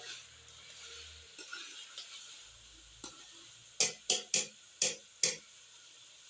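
Meat and vegetables sizzling softly in oil in a cooking pot while being stirred with a spoon, with five quick scrapes and knocks of the spoon against the pot a little past the middle.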